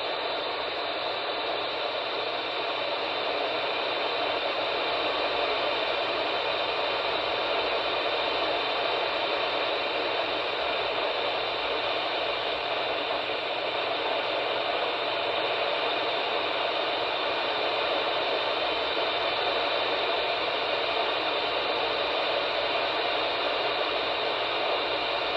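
Steady hiss of static from a weather radio receiver, with no voice coming through.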